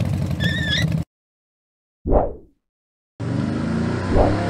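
Dubbed truck engine sound running steadily, cut off dead about a second in; after a second of silence comes one short sound that quickly fades, and the engine sound starts again just past three seconds in. A brief wavering high squeak sits just before the first cut.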